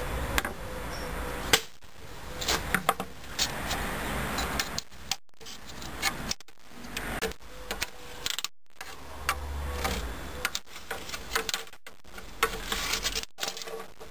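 Bamboo strip being split lengthwise: a knock of a hammer on a screwdriver driven into its end, then the fibres cracking and snapping in a run of sharp, irregular clicks as the strip is pried apart.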